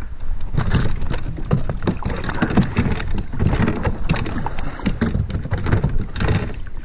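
A kayak paddle splashing and churning the water in repeated strokes, with scattered knocks and clatter from the paddle and the boat.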